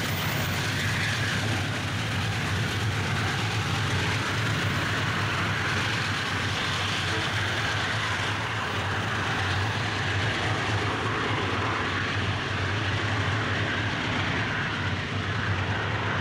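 Diesel-electric freight locomotives hauling a train: a steady low engine drone over the even rumble of the train rolling by.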